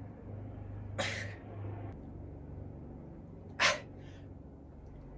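A person's sharp, forceful exhalations during ab crunches, one about a second in and another a little past the middle, over a steady low hum that stops about two seconds in.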